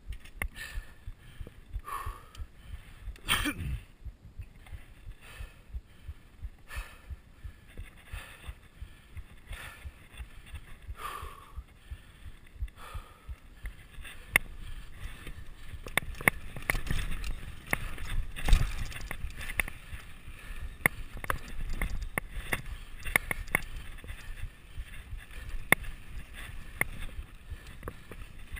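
A mountain biker's own heartbeat, picked up by the action camera, beats steadily a little over once a second. About halfway through it is buried under the bike's tyre rumble and the clatter and rattle of the bike on rough dirt trail as the descent speeds up.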